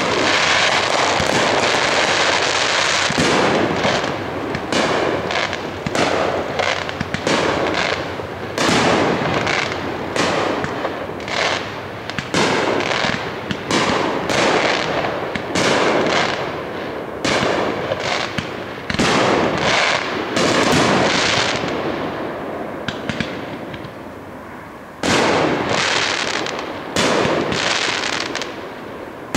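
Aerial firework shells bursting in quick succession, a dense run of bangs several a second. The bangs thin out and fade about three quarters of the way through, then a loud bang starts a fresh run.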